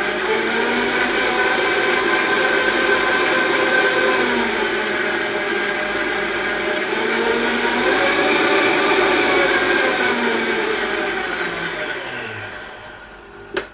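Vitamix blender motor running, blending a thin mix of coconut milk and vanilla shake powder. Its pitch drops about four seconds in, climbs again around eight seconds, then winds down and stops near the end.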